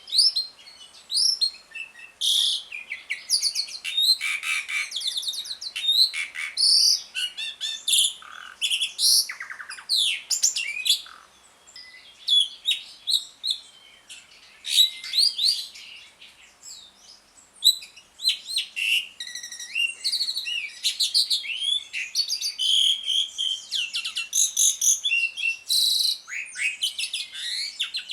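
Asian pied starling (jalak suren) singing a long, varied chattering song of quick chirps, whistles and rattling trills, with brief lulls about a third of the way in and again a little past halfway.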